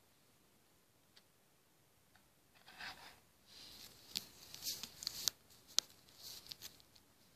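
Small plastic Hama beads clicking and rustling as they are handled and set onto a plastic pegboard. The sound starts about two and a half seconds in, with a few sharper clicks among the light rustling.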